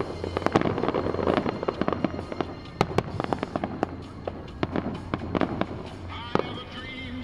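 Aerial fireworks going off in a string of sharp bangs and pops with crackling between them, the reports coming irregularly several times a second.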